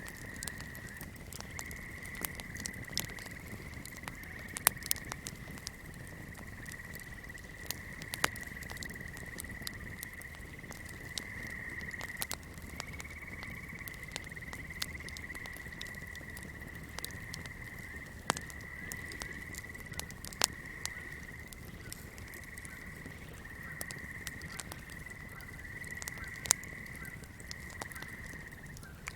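A steady high-pitched swamp chorus of calling creatures, with fire crackling over it in scattered sharp pops and ticks, a few of them loud.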